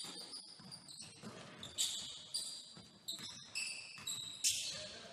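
Basketball game sounds in a gym: a string of sharp, high-pitched sneaker squeaks on the hardwood court and a ball bouncing, echoing in the hall.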